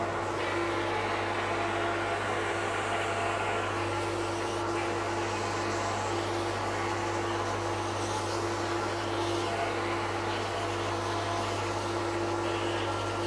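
Steady machine drone with a constant hum and an air hiss while a low-pressure powder coating gun, fed from a compressor airline, sprays powder.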